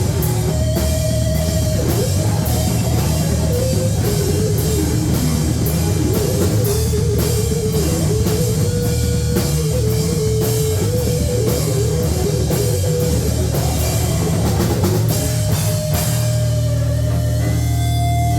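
Live heavy metal band playing loud: fast drums under distorted guitars with a wandering lead line. About two seconds before the end the drumming drops away and held guitar notes ring on.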